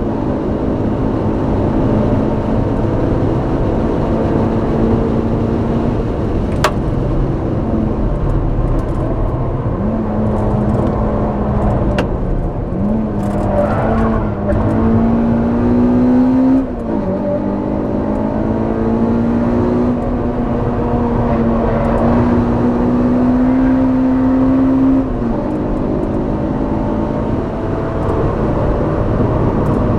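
Honda Civic Type R EP3's 2.0-litre four-cylinder engine heard at the exhaust on track, revs climbing under throttle and falling with lifts and gear changes. The revs rise steeply a little before the midpoint and drop sharply about 17 seconds in, then climb slowly again until a second drop near 25 seconds.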